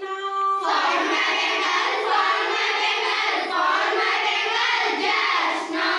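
A group of children singing a classroom rhyme together in unison, many voices at once. A single voice leads for about half a second before the group comes in.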